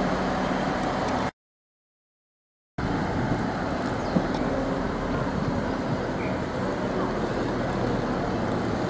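Steady low engine rumble of a train at the station, with general background noise. The sound drops out completely for about a second and a half, starting about a second in, where the recording cuts.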